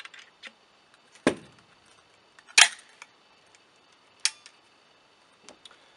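Sharp metallic clicks from handling a Lazer Arms XT7 break-action single-barrel 12 gauge shotgun as the action is closed on a 9mm adapter insert and the gun is readied to fire: three distinct clicks a little over a second apart, the middle one loudest, with a few faint ticks between.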